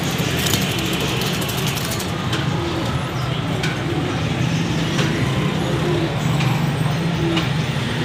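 Steady low rumble of nearby road traffic and engines, with a few light clicks scattered through it.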